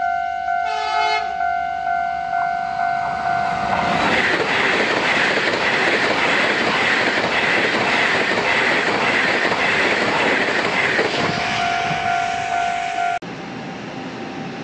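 Level-crossing warning bell ringing in quick pulses, with a short train horn blast about a second in. A Taiwan Railway train then rushes past at speed from about 4 s to 11 s, a loud rush of wheels and wind. The bell carries on after the train has gone until the sound changes abruptly near the end.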